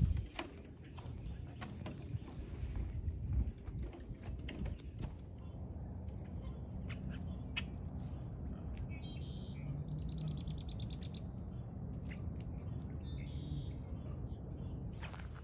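Crickets trilling in one steady, unbroken high-pitched drone.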